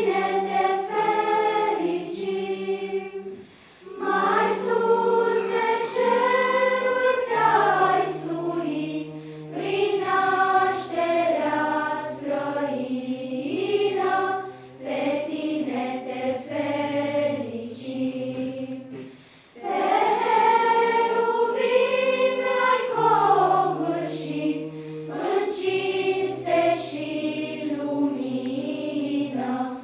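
A children's choir singing a cappella in several parts, with low held notes under the moving melody. The singing is in long phrases, with short breaks about four seconds in and again near twenty seconds.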